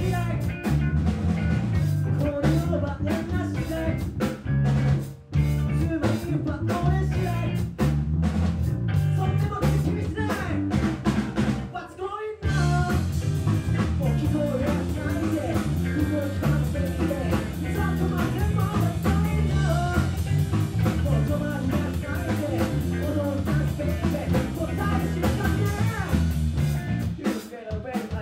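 Live band playing a funky soul-rock song: electric bass, drum kit and a singer through the PA. The band stops briefly twice, about five and twelve seconds in, then carries on.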